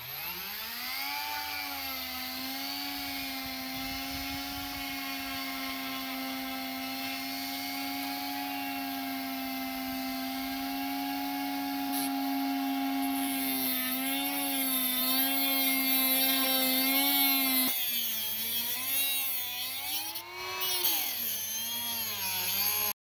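Rotary tool fitted with a small cut-off wheel spinning up and running at a steady high whine. From about halfway through, its pitch wavers and sags twice as the wheel bites into the metal swage (crimped ferrule) of a power steering hose.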